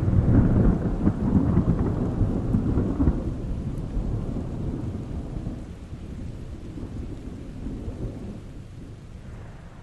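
Rolling thunder rumbling, loudest in the first three seconds and then slowly dying away, over steady rain.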